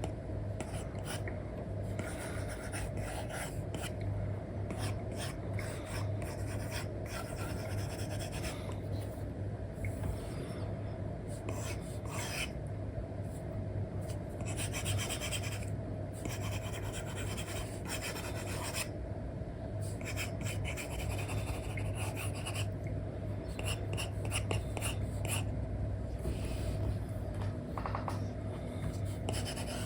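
Apple Pencil 2 with an Elecom replacement nib scratching across a paper-like matte screen film on an iPad, in irregular stop-start strokes. A steady low hum runs underneath.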